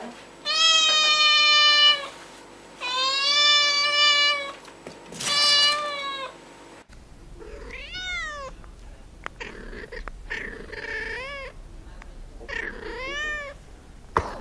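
Kittens meowing: three long drawn-out meows, then, after a change in background sound about halfway, a series of shorter meows that rise and fall in pitch.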